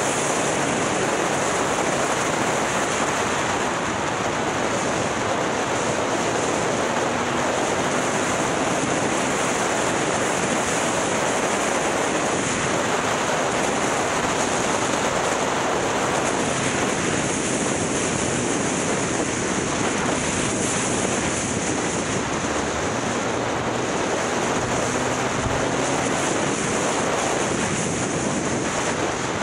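Steady rush of wind on the microphone of a camera riding on a moving motorbike, with the motorbike's engine faint underneath.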